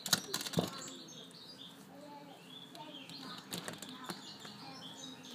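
Small birds chirping, with a few sharp clicks and rustles near the start and again about three and a half seconds in.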